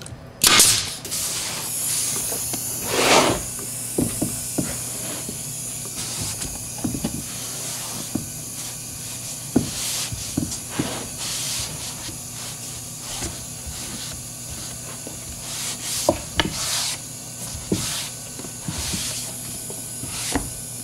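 A nail gun fires once into an MDF panel about half a second in. After that, a damp rag rubs and swishes along the glued MDF joints, with scattered light knocks over a steady hiss.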